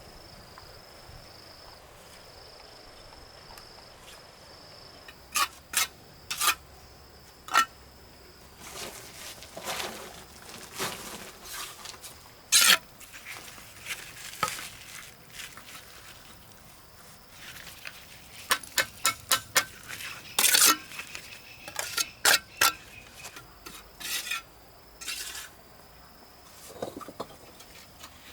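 Building work with hand tools: sharp, irregular clinking taps against hard material, including a quick run of five or six taps, and a few short scrapes. A steady high insect drone runs underneath, fading out while the tapping is busiest.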